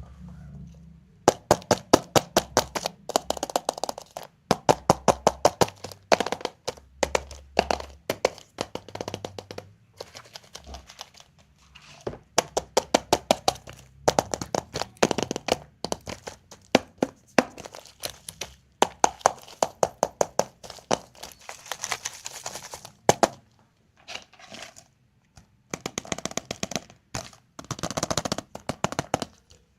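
Surprise-egg and candy wrappers being unwrapped by hand: rapid crackling and crinkling of packaging, in bursts of dense clicks with short pauses between.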